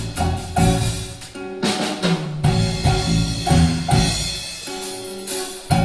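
Live band music with drums and percussion to the fore: a steady beat of drum strikes over low pitched notes.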